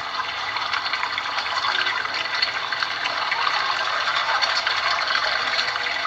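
Water splashing and churning in a steady, crackling rush that swells slightly after the first second.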